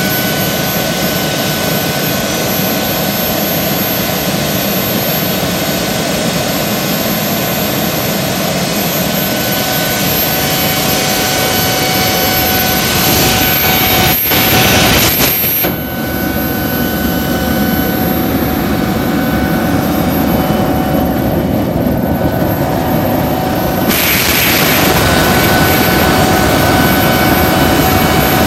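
Small jet turbine engine on a garden tractor running, a loud steady rushing roar with a high whine on top. About 14 seconds in it surges briefly and dips, the high hiss then falls away for several seconds and comes back strongly about 24 seconds in.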